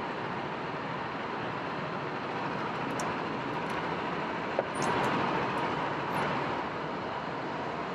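Go-karts running, heard as a steady rushing noise with a faint steady whine, and a few sharp clicks near the middle.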